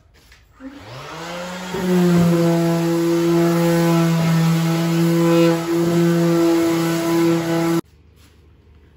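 Electric sander motor spinning up with a rising whine, then running at a steady high-pitched hum while sanding a wooden cabinet door; it cuts off abruptly near the end.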